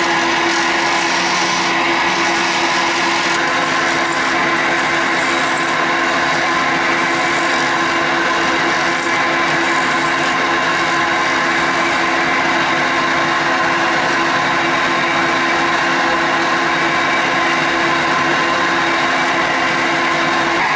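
A small lathe running steadily, with a cutting tool or abrasive working the spinning resin pen blank. Irregular scratchy scraping comes and goes in the first half, then the sound settles to a smoother steady hum and rub.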